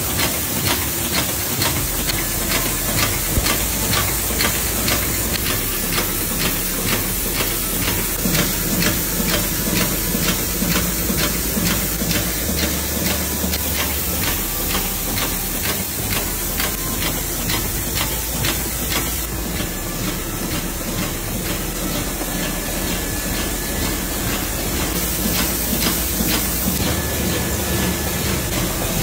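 Juice-pack filling and packaging machinery running: a steady hiss with fast, regular clicking and a low hum.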